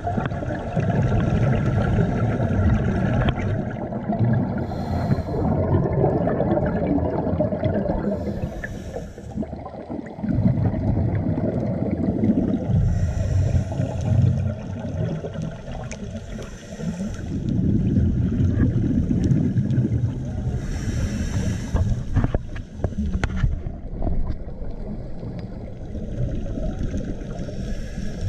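Scuba regulator breathing underwater: long rumbling bursts of exhaled bubbles alternating with short hissing inhalations, one breath every few seconds.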